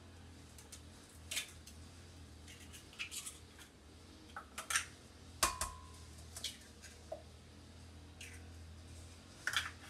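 Eggs being cracked against the rim of a glass blender jar and opened into it: a series of sharp, irregular taps and clicks, one with a brief glassy ring.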